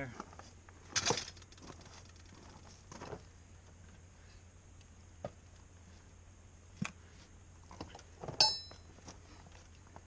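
Scattered knocks and metallic clinks from handling a steel wheel and tire on a stepladder, the loudest a short ringing metal clink about eight and a half seconds in.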